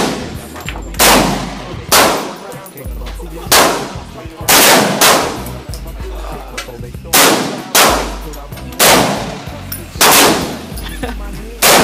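Semi-automatic pistol fired about ten times at an irregular pace, each shot sharp with a short ringing tail.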